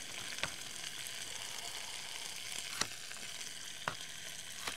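Pork chops sizzling steadily as they sear in olive oil in a cast-iron Dutch oven, with four sharp knife knocks on a cutting board as potatoes are cut.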